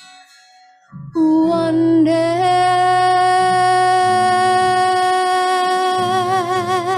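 A woman singing one long held note over an acoustic guitar, after a brief pause at the start; the note steps up slightly soon after it begins and takes on vibrato near the end.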